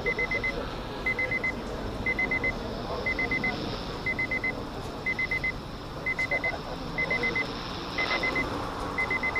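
Weather radio's built-in alarm beeping in groups of four quick high beeps, about one group a second, over a steady hiss, signalling an incoming weather alert.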